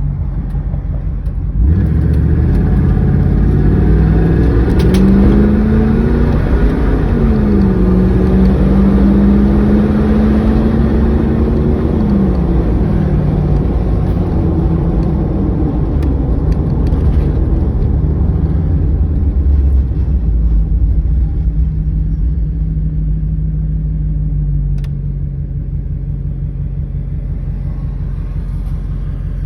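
Vehicle engine running, its engine fitted with a replaced injector. About two seconds in its pitch rises and climbs, dips briefly, then holds a higher steady note. Partway through it falls back to a lower steady note, and it steps down again near the end.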